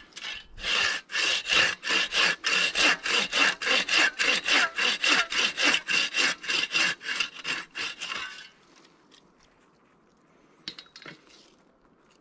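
Hand saw cutting through wood in steady back-and-forth strokes, about three a second, for roughly eight seconds before stopping. A few light knocks follow near the end.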